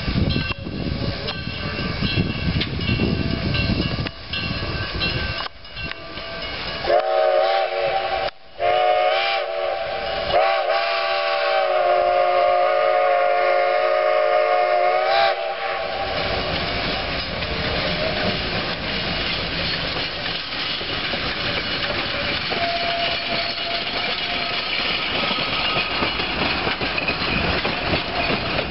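Steam locomotive working past with a passenger train. About a third of the way in, its whistle blows a chord of several tones in three blasts, the last about five seconds long. After that come the steady sounds of the coaches rolling by on the rails.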